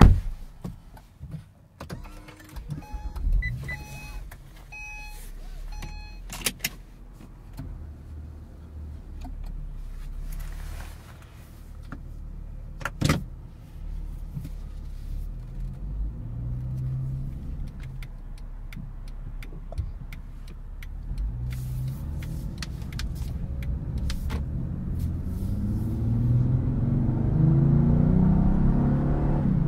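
A car door shuts with a thump at the start, then a dashboard chime beeps four times about a second apart. The Acura ZDX's 3.7-litre V6 then runs under a low cabin rumble as the car drives off, its note building as it accelerates near the end.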